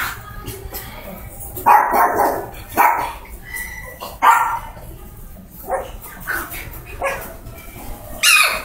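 Poodle puppies giving a string of short yips and barks, roughly a second apart.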